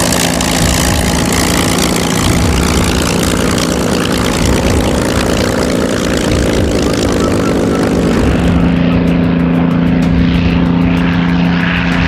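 Bell P-39 Airacobra's Allison V-1710 V-12 engine and propeller running steadily at low power while taxiing after landing. It is a steady, loud hum with a couple of low tones. The hiss above it thins out about nine seconds in, and the sound cuts off abruptly at the end.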